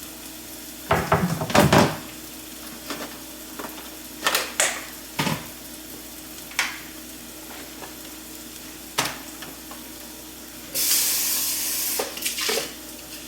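Peppers sautéing in a skillet with a low, steady sizzle, while kitchen items knock and clatter several times, loudest in a cluster about a second in. About eleven seconds in, a rushing hiss lasts about a second.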